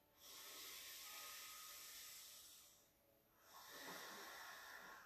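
Faint, slow, deep breathing by a woman holding a yoga pose: two long breaths, each lasting about two and a half seconds, with a short pause between them.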